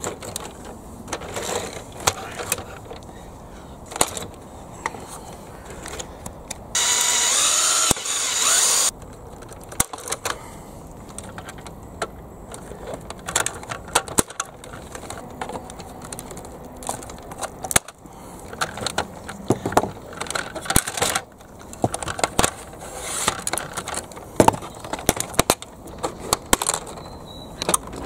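Clicks, taps and scrapes of hard plastic as the arm parts of a Bruder CAT toy excavator are pried and worked loose with a small blade. A cordless drill runs for about two seconds, roughly a quarter of the way in, drilling out plastic locating pieces.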